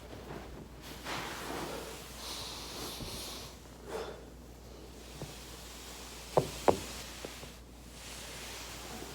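A person's back cracking during foam rolling: two sharp pops about a third of a second apart, a little past the middle, with a few fainter clicks and soft rustling of the body shifting on the roller around them.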